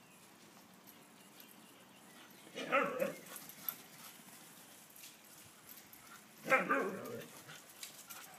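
Siberian husky giving two short calls, each about half a second long, about four seconds apart.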